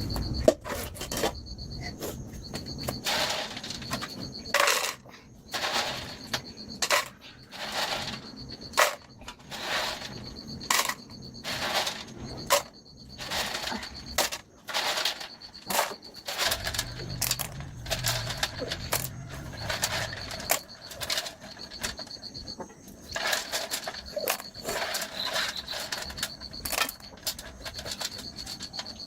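Repeated sharp knocking or clinking strokes, about one a second, over a steady high insect drone.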